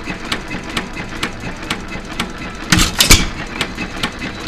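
United 2.5 hp hit-and-miss engine running just after a cold start: steady clicking about four times a second as it coasts, and one loud firing stroke about three seconds in. It runs slow because one governor spring is off the weights.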